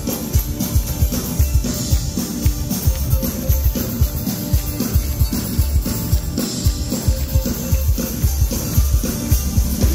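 Live band playing an instrumental passage through the stage PA: a drum kit keeps a steady beat under a strummed acoustic guitar.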